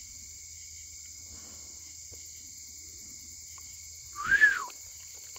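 Steady night chorus of crickets and other insects. About four seconds in comes one short, loud call that rises and then falls in pitch.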